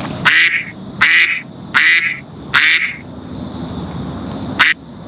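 A duck quacking: four loud quacks in an even series about a second apart, then a shorter one near the end.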